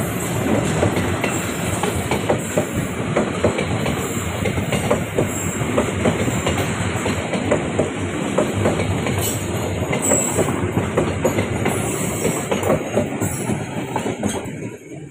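Passenger train rolling past, its wheels clattering steadily over the rail joints; the noise eases off near the end.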